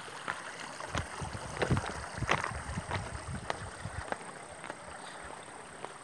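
Footsteps crunching over the loose stones and gravel of a rocky streambed: irregular sharp clicks with some low thumps, most dense in the first half.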